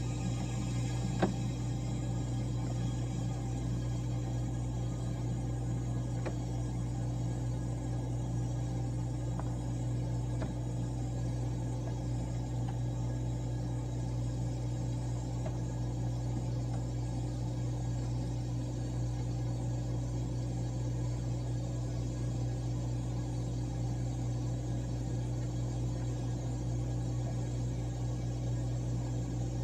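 Whirlpool ice machine compressor running with a steady hum, with a single click about a second in.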